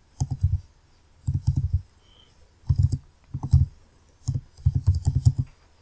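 Typing on a computer keyboard: quick keystroke clicks in about six short bursts, with brief pauses between them.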